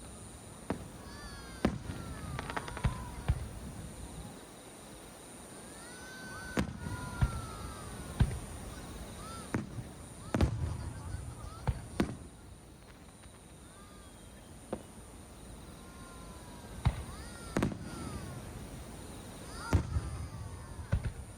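Aerial fireworks bursting: a dozen or so sharp bangs, irregularly spaced and sometimes in quick clusters, with whistling tones that glide up and down in pitch between them.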